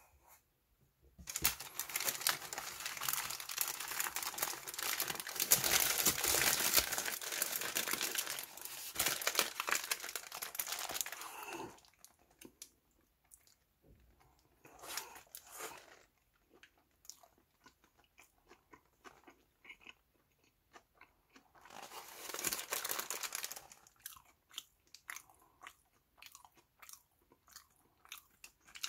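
Close-miked eating of a Lotteria burger: the paper wrapper crinkles as the burger is handled, and bites and chewing follow. The longest and loudest stretch of noise lasts about ten seconds near the start, with shorter bursts of bites and chewing later.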